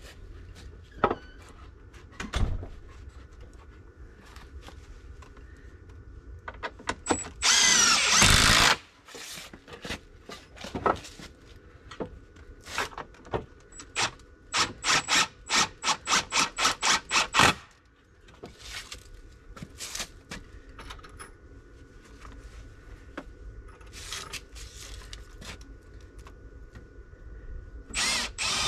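Cordless impact driver driving screws into wooden frame boards. There is one continuous run of about a second, then a quick series of short trigger pulses, about four a second, and a few more short bursts near the end.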